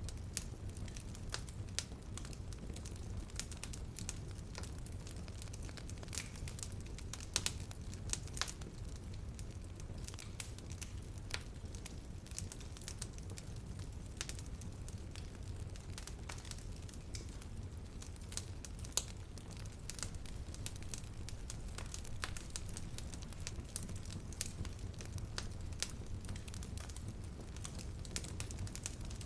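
Fireplace fire crackling: irregular sharp snaps over a steady low rumble.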